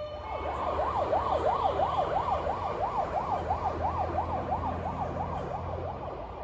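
Emergency vehicle siren yelping, its pitch sweeping rapidly up and down about three times a second, fading as it moves away near the end, over a low rumble of road traffic.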